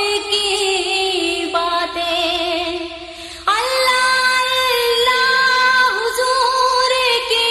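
A high voice singing a slow Urdu devotional salam (naat), holding long notes with wavering ornaments; the voice dips briefly, then a new phrase begins about halfway through.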